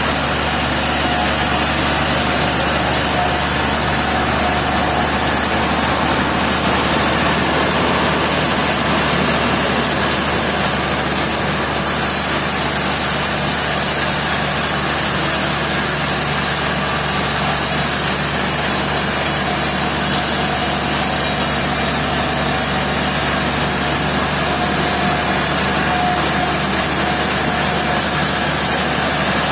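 Sawmill machinery running steadily, an engine-driven drone with a constant low hum and a strong hiss, unchanging throughout.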